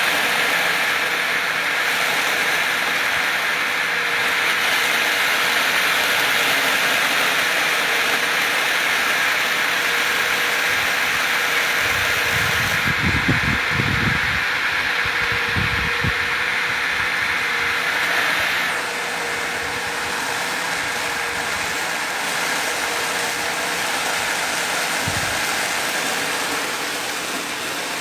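Well-drilling rig machinery, driven by an electric motor, running steadily with a constant hum, and a few low knocks about halfway through and once more near the end.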